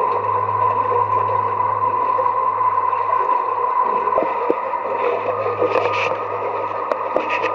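Steady rush of sewage water flowing along a sewer channel, echoing in the tunnel. A few short knocks come in after about four seconds.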